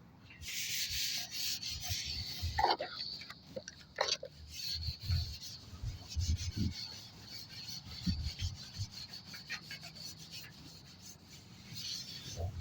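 A rag scrubbing and wiping a dirty garage door: an uneven rubbing hiss, with scattered low thumps and clicks.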